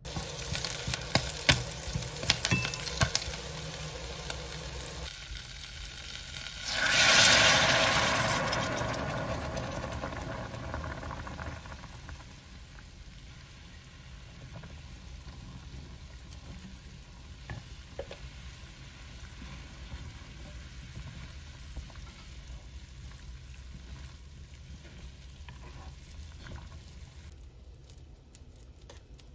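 Food frying in a hot pan: a few sharp clicks, then a sudden loud burst of sizzling that fades over several seconds into a quieter, steady sizzle.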